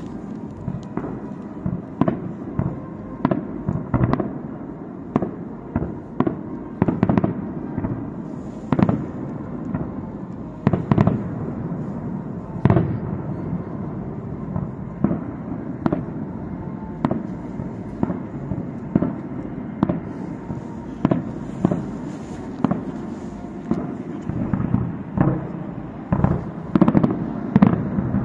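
Distant aerial firework shells bursting in a continuous string of sharp bangs, about one to two a second, over a steady low rumble of overlapping reports.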